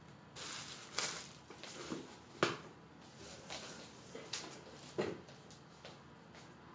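Cardboard box and packaging being handled and moved on a wooden table: rustling with several sharp knocks, the loudest about two and a half seconds in.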